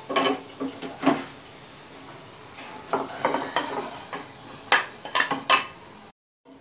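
Metal spoon clanking and scraping against a steel kadai as a hot onion-and-spice tempering is tipped into a pressure cooker of dal, over a light sizzle. There are several separate knocks and scrapes.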